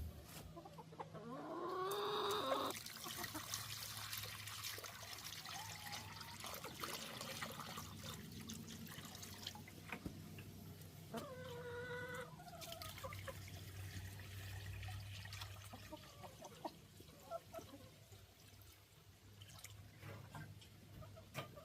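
Backyard hens clucking, with two longer pitched calls about two seconds in and about eleven seconds in, over splashing and dripping water as their water bowls are filled.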